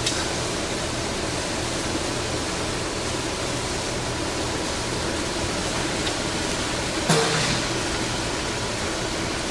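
Hardinge HLV-H tool-room lathe running with a steady whirring hum. A light click of the control panel comes at the start, and a sharper knock with a brief ring about seven seconds in.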